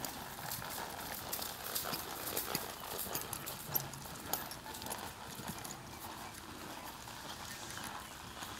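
A ridden horse's hoofbeats on a dry dirt arena: an irregular run of dull strikes as it moves around the pen.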